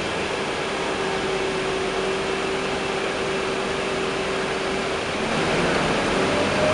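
Cabin noise inside a moving Scania K230UB single-deck bus: its Scania DC9 diesel engine, air conditioning and road noise make a steady rumble and hiss. A steady whine sits over it and fades about five seconds in, and the noise grows a little louder near the end, with a short rising tone.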